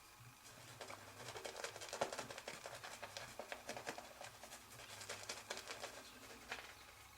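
Straight razor with a Bengal cast steel blade scraping through lathered stubble: a crackling series of short strokes, in two runs with a brief pause midway.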